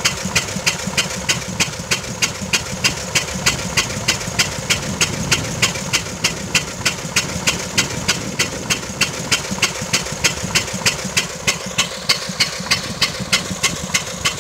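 The single-cylinder-era 16 hp gasoline engine of a 1907 Waterous horse-drawn fire engine running slowly and steadily while it drives the pump. Each firing gives a sharp, even pop, about three a second, over a low rumble.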